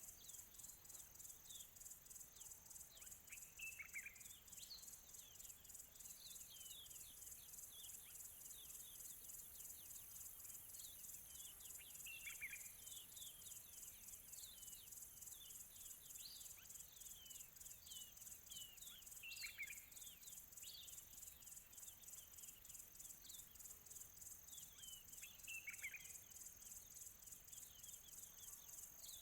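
Faint chorus of crickets chirping in a steady, fast-pulsing trill. Over it come scattered short bird chirps and a falling bird call that repeats about every six to seven seconds.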